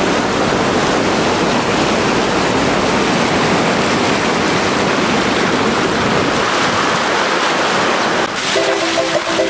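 Fast mountain river rushing over rocks, a loud steady roar of whitewater. Music comes in about a second before the end.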